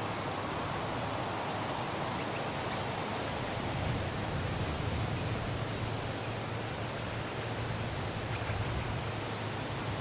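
Steady hiss with a low hum underneath, with no distinct calls or knocks.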